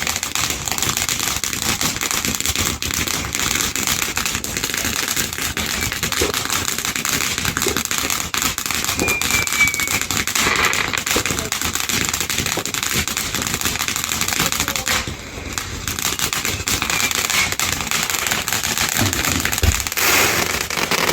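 Firework fountains crackling continuously in a dense stream of rapid pops, with a brief lull about fifteen seconds in.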